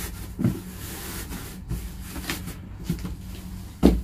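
Cardboard box covered in a cotton T-shirt being handled and shifted on a table: cloth rustling with several light knocks, and a louder thump near the end.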